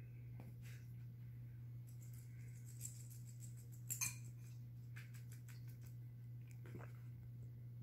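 Faint patter and light clicks of a poodle puppy moving about on carpet and settling down, over a steady low hum. A sharper double click comes about four seconds in.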